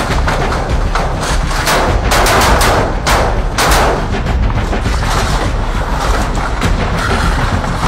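Rapid rifle gunfire: repeated shots and short bursts, heaviest about two to four seconds in.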